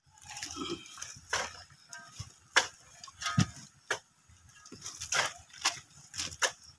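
Shovel digging into stony soil: irregular scrapes and chops of the blade, with loose earth tossed aside.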